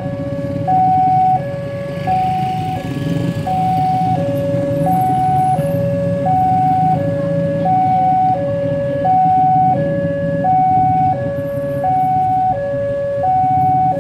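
Railway level-crossing warning alarm sounding a steady two-tone ding-dong, a higher and a lower note alternating evenly, each lasting about two-thirds of a second. It is the crossing's warning that a train is approaching while the barriers are down.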